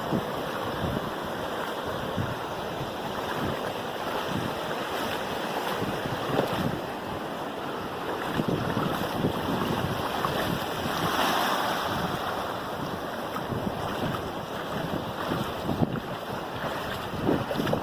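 Ocean surf washing in with gusting wind buffeting the microphone: a steady rushing noise that swells and eases.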